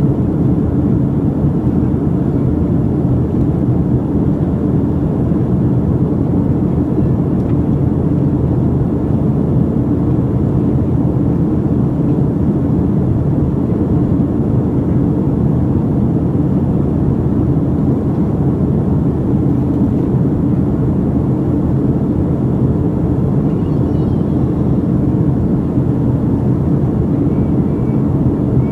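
Airliner cabin noise in flight: a steady low rumble that does not change.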